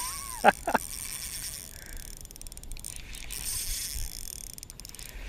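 Spinning reel being cranked to wind in a lure, its gears whirring with scattered light clicks.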